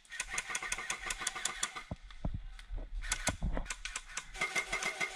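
Airsoft guns firing rapid strings of shots, a fast run of sharp clicks at about a dozen a second. A first string lasts about a second and a half, a few scattered shots follow, and a second string starts about three seconds in.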